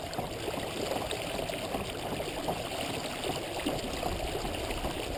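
Steady rushing and splashing of water along the hull of a pedal-driven Mirage-drive kayak moving at about four miles an hour.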